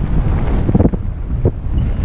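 Wind buffeting the microphone of a camera moving fast down a ski slope, a steady low rumble. Two short scrapes of edges on snow come about a second in and near the end.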